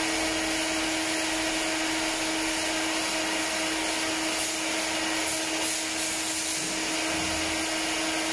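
Automatic cooking-oil bottling and labelling line running: a steady machine hum with a constant hiss over it.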